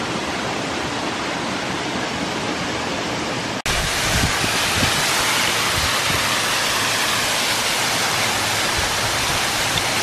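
Waterfall splashing steadily onto the rocks below, a constant rushing noise. About a third of the way in it cuts out for an instant and comes back a little louder and brighter.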